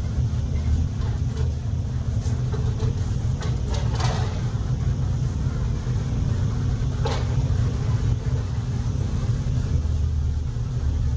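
Steady low engine rumble running throughout, with a few faint clicks about two, four and seven seconds in.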